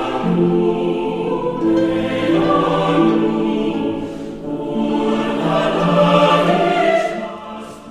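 Music with a choir singing long held notes that change every second or so, swelling and then dying down near the end.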